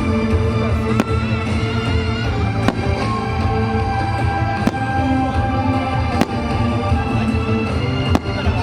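Fireworks going off, about half a dozen sharp bangs a second or so apart, over music that plays throughout.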